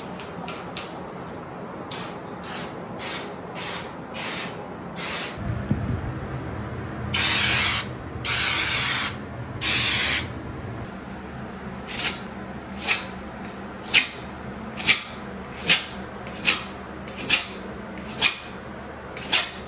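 Wall-patching work: three hissing sprays of under a second each, then a steady run of short rubbing strokes on the wall, about one a second.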